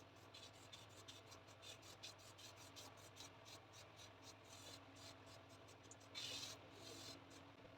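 Faint hand sanding of wood with sandpaper: quick, repeated rubbing strokes, with a louder scrape about six seconds in.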